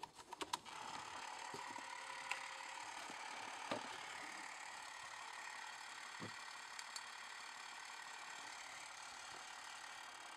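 Canon Canosound 312XL-S Super 8 sound movie camera running: a few clicks as it is set going, then the steady whir of its motor and film-transport mechanism.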